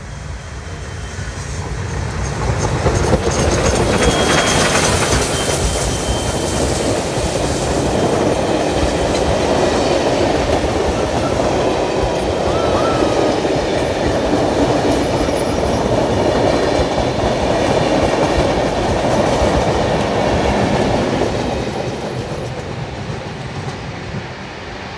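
NSWGR 5917, a 59 class steam locomotive, and its train of carriages passing close by. The sound swells about two seconds in as the locomotive comes past, the carriage wheels click over the rail joints, and it fades near the end as the last wagons go by.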